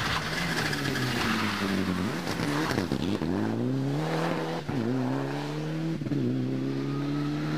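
Rally car engine at full effort, its pitch falling as the car slows about three seconds in, then climbing again through quick upshifts about five and six seconds in.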